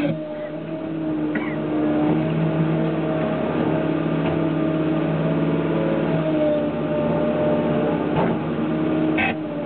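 Forestry harvester with a Logmax harvester head: its diesel engine and hydraulics running steadily with a wavering hum, with a few light clicks.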